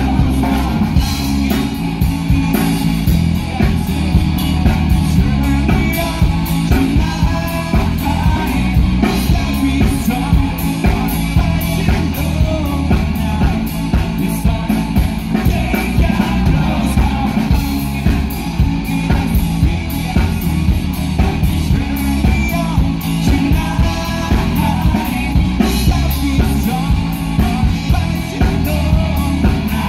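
Live rock band playing a song, amplified through a PA: a male singer over electric guitar, bass guitar and drum kit.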